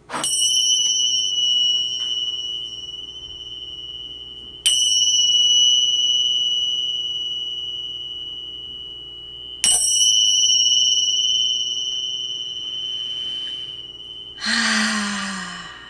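A high-pitched meditation chime struck three times, about five seconds apart, each strike ringing on and fading slowly. Near the end, a brief breathy exhale with a falling voice.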